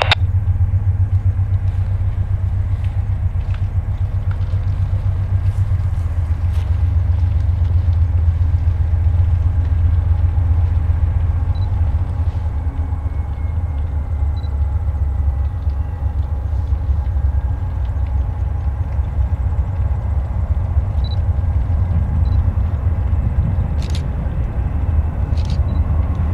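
Low, steady rumble of a pair of GE diesel locomotives approaching with a train, its pitch settling a little lower about six seconds in. A couple of brief sharp ticks sound near the end.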